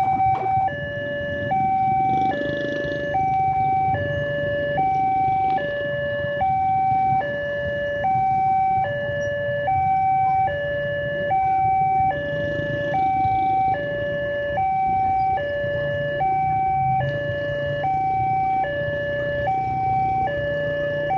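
Railway level-crossing warning alarm sounding from the horn loudspeaker on the signal post: an electronic two-tone signal that alternates evenly high and low, about one cycle every second and a half, warning that a train is approaching. Road traffic engines run underneath.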